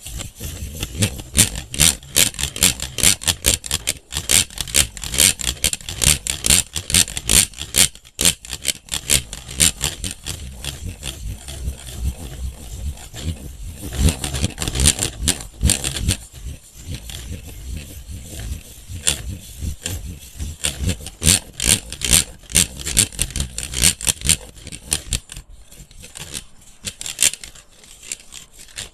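Close-miked scratching and tapping on a handheld electric fan, many quick irregular strokes with a low rumble of handling beneath.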